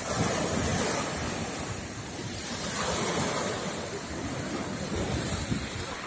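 Surf from a slightly rough sea breaking and washing on the shore, with wind buffeting the microphone.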